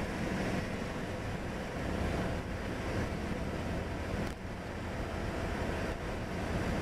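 Mercedes-Benz W123 driving at a steady speed, heard from inside the cabin: an even mix of engine, tyre and wind noise.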